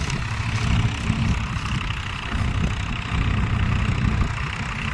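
Diesel engine of a wheat-harvesting machine running steadily at a low rumble, with a steady mechanical hiss above it.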